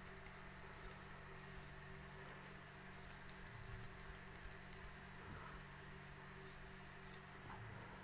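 Faint rubbing of a piece of leather pressed hard and worked back and forth over the Rub 'n Buff–coated rim of a painted flange, polishing the wax to a polished-aluminum shine. It comes as a run of quick, light strokes over a low steady hum.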